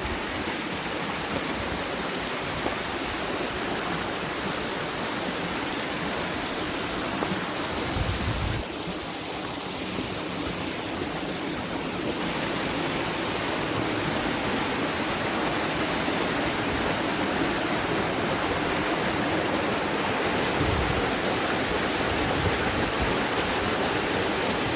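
Waterfall water rushing steadily, growing a little louder in the second half.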